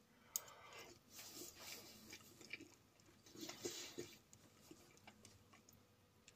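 Faint chewing: a person eating a spoonful of ration-pack potato wedges in sauce, with soft, irregular mouth noises.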